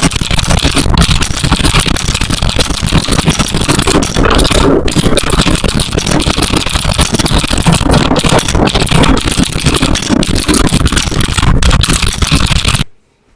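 Continuous fast typing on a Geonworks Frog mechanical keyboard, a dense clatter of key strokes that stops suddenly near the end.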